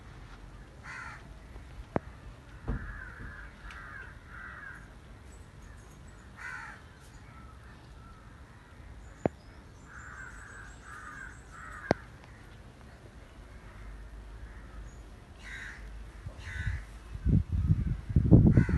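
Crows cawing off and on, in short series of harsh calls. A few sharp clicks, then a loud low rumble near the end.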